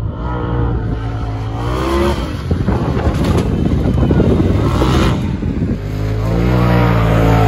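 Polaris RZR Pro XP side-by-side engine revving hard under acceleration, pitch climbing through the first two seconds. A rougher, noisier stretch follows in the middle. The engine climbs in pitch again near the end.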